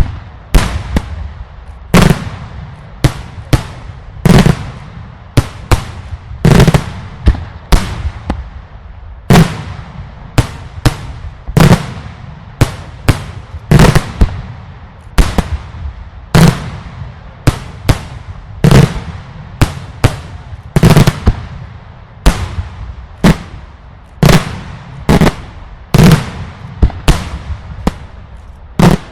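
Daylight fireworks going off in a continuous barrage: loud, sharp bangs one after another, irregularly spaced at about one or two a second, each trailing off in a short echo.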